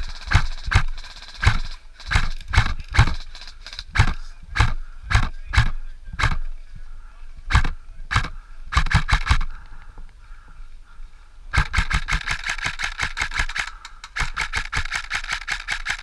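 An airsoft rifle firing: single shots about two a second for the first nine seconds or so. Then, after a short pause, two long rapid full-auto bursts with a whirring mechanism under them.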